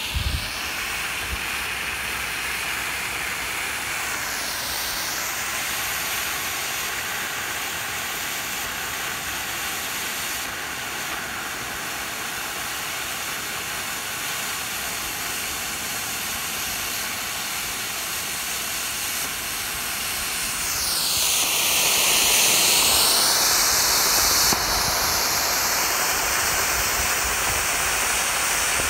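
Black smoke firework can burning with a steady hiss as the smoke pours out. About three-quarters of the way through the hiss grows louder, and its pitch dips and then rises again.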